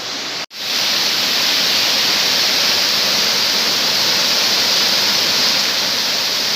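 Waterfall's falling water: a steady rushing that briefly cuts out about half a second in and comes back slightly louder.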